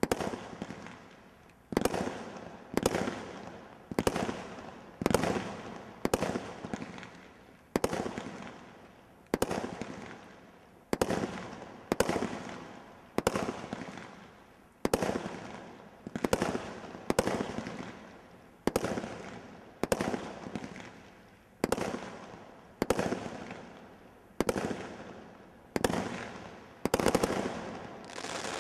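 Brothers Pyrotechnics 'Lightning Strike' 24-shot Category 3 combination roman candle barrage firing: a steady run of sharp shots about once a second, each fading out before the next.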